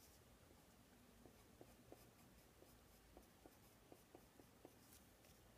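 Faint pencil drawing on paper: quiet scratching strokes with a dozen or so light ticks at uneven intervals.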